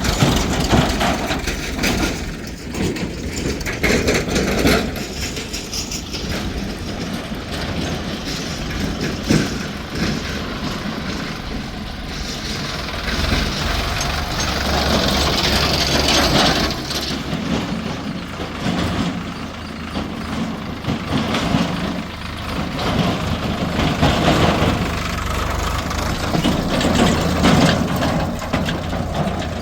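Diesel engine of a backhoe loader running steadily while it digs and loads mud, with irregular knocks and cracks from the work.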